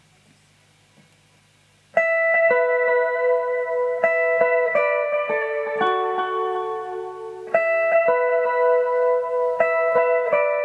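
Electric guitar picking a clean, ringing arpeggiated phrase whose notes sustain and overlap, coming in suddenly about two seconds in over a low steady hum; the phrase starts over about halfway through.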